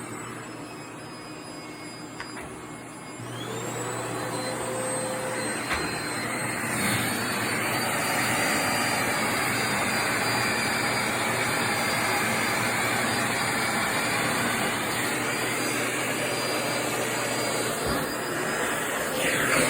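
Vacuum cleaner switched on about three seconds in, its motor whine rising in pitch as it spins up, then running steadily with a strong rush of suction.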